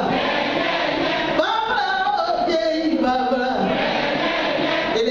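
Singing through a PA system, several voices together in sung phrases with notes held and sliding in pitch.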